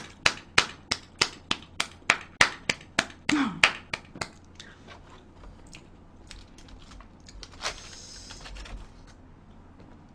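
A person clapping, about three claps a second for roughly four seconds. After that come fainter taps and a short scraping noise as chopsticks pick at food.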